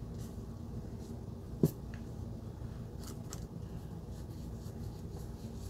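Quiet room tone with a steady low hum, a single faint click about a second and a half in, and a few soft ticks of small handling.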